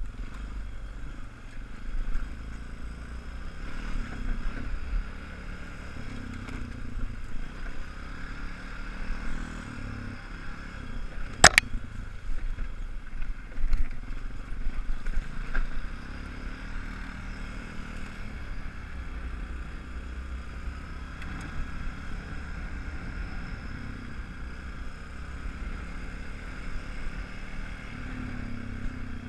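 ATV engine running as it is ridden along a snowy logging road, with a sharp knock about a third of the way in and a few smaller knocks soon after.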